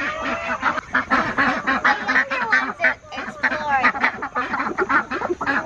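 Several ducks quacking, a busy run of short, overlapping quacks.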